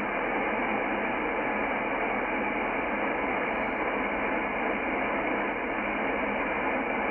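Shortwave band noise from a Yaesu FTdx10 transceiver being tuned in upper sideband: a steady, narrow hiss with no station heard.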